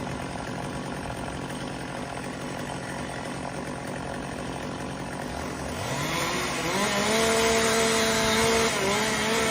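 Chainsaw running low, then about six seconds in revving up quickly to full throttle and holding there, with a brief dip in pitch near the end.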